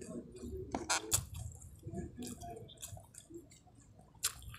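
Close-miked wet chewing and lip-smacking of a man eating nasi Padang (rice with curried dishes) by hand, with sharp mouth clicks around a second in and again near the end.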